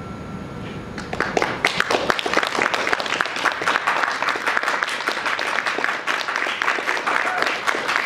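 Low room hum, then about a second in an audience starts applauding: dense, steady clapping that carries on.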